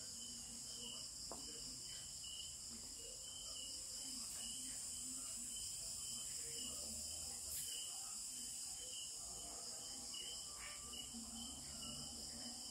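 Low, steady chirring of insects, with a regular pulsing chirp repeating a few times a second.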